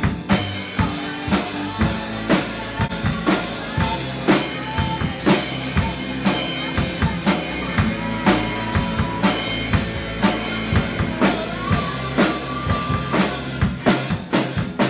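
A young band rehearsing a song: a drum kit keeps a steady beat of bass drum and snare hits, with guitars and piano playing underneath.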